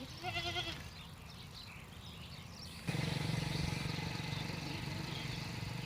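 A short, wavering animal bleat near the start; about three seconds in, a steady low hum with outdoor noise sets in abruptly.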